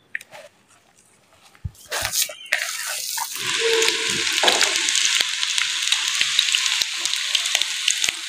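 Chicken-and-vegetable kababs shallow-frying in hot oil in a pan: a steady sizzle with many small crackles and pops, starting about two and a half seconds in. Before that it is quiet, with a few soft clicks from hands mixing the kabab mixture.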